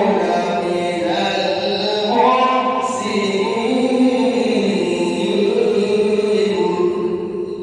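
A man's voice reciting the Quran in a melodic, chanted style, drawing out long held notes. The phrase fades away near the end.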